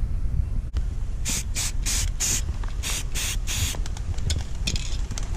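Aerosol can of black spray paint spraying in about seven short bursts, starting about a second in, then a few fainter, briefer puffs near the end.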